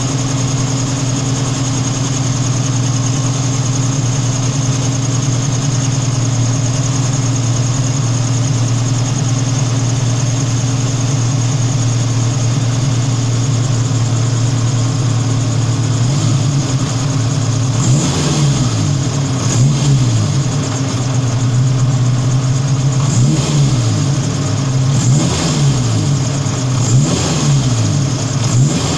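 Car engine idling steadily, then blipped over and over from a little past halfway, the revs rising and falling five or six times. The engine carries a strange noise that the owner suspects is excess compression ratio making it strike the valves, with ignition timing set at 9°.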